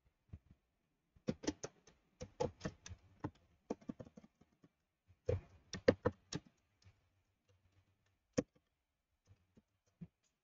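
Computer keyboard typing: irregular runs of quick key clicks, then a few single taps near the end.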